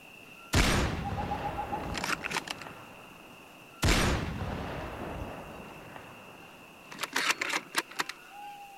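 Two heavy rifle shots about three seconds apart, each with a long echoing tail: dubbed-in sniper rifle sound effects standing in for an airsoft rifle. A quick run of sharp clicks comes near the end, over a steady high tone in the background.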